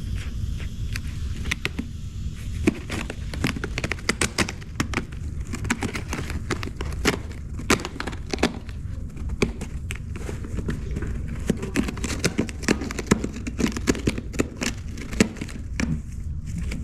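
Irregular rapid clicks and taps, as of a cat batting and pawing at a plastic interactive toy, over a steady low hum.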